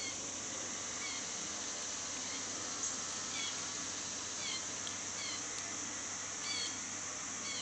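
Baby blue jays begging to be fed: short screeching calls repeated about once a second, over a steady high-pitched hiss.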